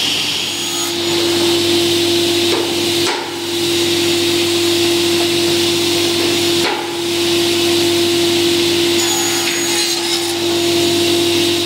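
Sliding table panel saw running at full speed, a steady whining hum over a constant rushing noise, as a white-faced board sheet is fed into the blade.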